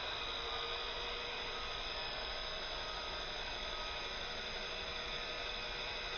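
Infrared induction toy helicopter's twin stacked rotors and small electric motors whirring steadily as it hovers.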